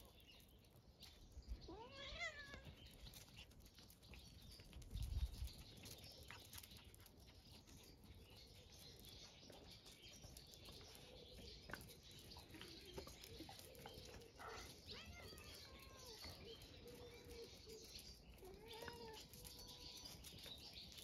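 A cat meows once about two seconds in, a call that rises and bends in pitch. Fainter short cries follow later, and there is a brief low thump about five seconds in.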